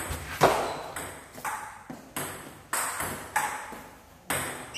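Table tennis rally: the ball clicking off the bats and the table in turn, about two sharp clicks a second, each with a short echo in the hall.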